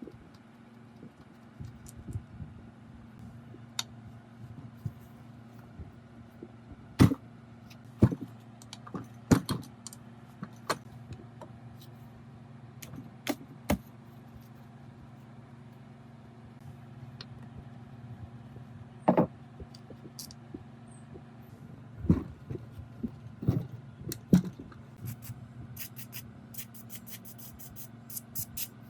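Metal parts and hand tools clinking and knocking as a rusty mechanism is worked on, over a steady low hum, ending in a fast run of even clicks.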